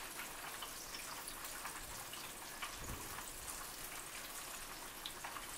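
A flour-dredged pork chop frying in hot grease: a faint, steady sizzle with small crackles.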